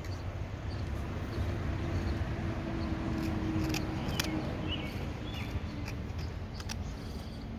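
A whittling knife cutting sugar pine, giving a few short sharp clicks, over a low steady outdoor rumble with a faint hum that swells and fades in the middle. A few faint bird chirps.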